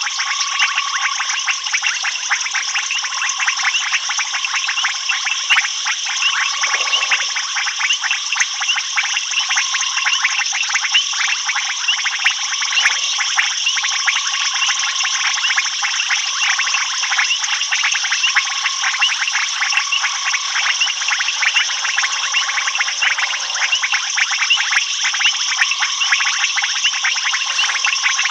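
Dense night chorus of frogs and insects: fast, continuous ticking and trilling, with a short mid-pitched note repeating about every two seconds.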